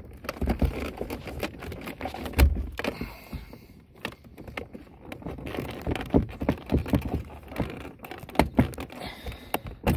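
Irregular plastic clicks and knocks as a Hyundai Santa Fe door trim panel is handled and its wiring connectors are unplugged, with a heavier thud about two and a half seconds in.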